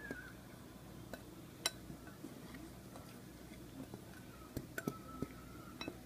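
Faint, scattered clicks of a whisk tapping a glass mixing bowl while dry flour, sugar and cocoa are whisked together, over a low steady room background.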